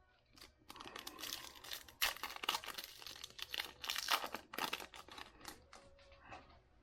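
Foil wrapper of a baseball card pack being torn open and crinkled, a run of crackling from about a second in, loudest around the middle and fading out near the end.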